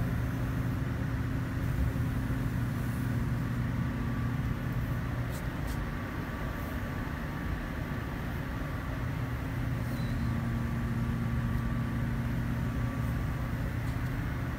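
Paint spray booth's fans running: a steady low hum with a rush of moving air.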